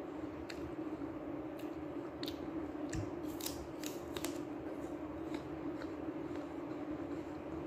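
Crisp crunches of someone biting and chewing apple slices: a run of short, sharp cracks, thickest between about three and four and a half seconds in, over a steady low hum.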